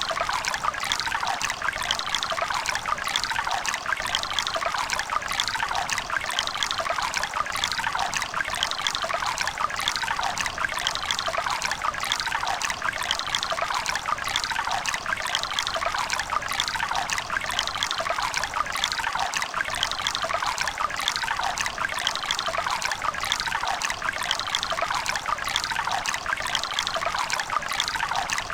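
A river running: steady rushing and splashing water with lively bubbling and gurgling.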